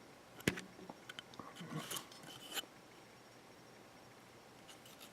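Hands handling the circuit board and plastic housing of a solar charge controller: a sharp click about half a second in, then a short run of small clicks and rustles, after which it falls quiet.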